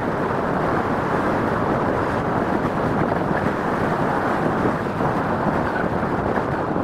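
Steady rushing noise of a Boeing 787-9 airliner's jet engines during its landing roll, mixed with strong wind buffeting the microphone.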